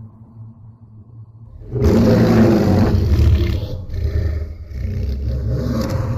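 Godzilla roar sound effect mixed from the Millennium and Legendary Godzilla roars: after a low fading rumble, a loud, long roar starts just under two seconds in and eases off somewhat about four seconds in.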